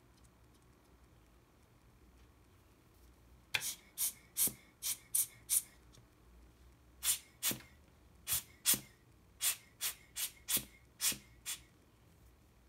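Rubber hand air-blower bulb squeezed in quick puffs, each a short hiss of air: six in a row, a pause of about a second and a half, then about ten more, roughly two a second.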